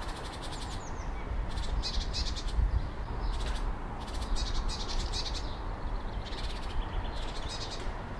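Short high-pitched trills, each a rapid run of pulses, repeating about once a second, some overlapping, over a steady low rumble.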